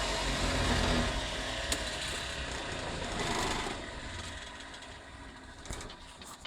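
Homemade metal lathe and its coolant pump running, then winding down: the machine noise fades away over the last few seconds.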